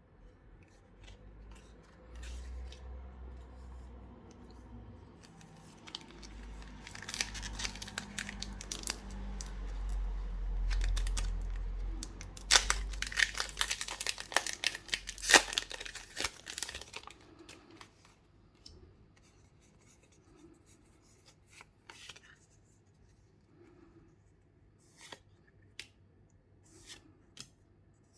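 Pokémon card packaging being torn open by hand, with crinkling plastic and handling noise. A short burst of tearing is followed by a longer, louder stretch, then only scattered light clicks and taps in the second half.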